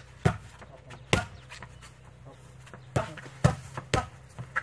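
Boxing gloves smacking against focus mitts: about six sharp slaps, two in the first second or so and a quick run of four near the end.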